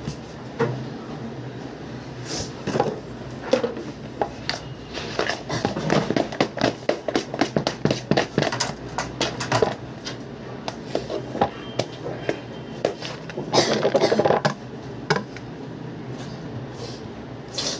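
Metal icing spatula spreading and scraping whipped cream on a cake, with many short taps and scrapes of metal against the metal turntable, busiest in the middle.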